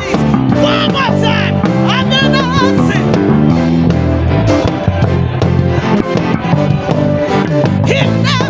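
Live church praise band music with a prominent electric bass line, with sung vocal lines with vibrato about two seconds in and again near the end.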